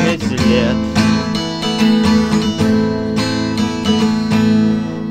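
Recorded song's instrumental ending: strummed guitar chords ringing about once a second, fading out near the end.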